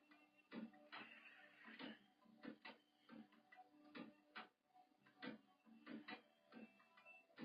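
Faint, irregular clicks and taps, about one or two a second, over a low steady hum.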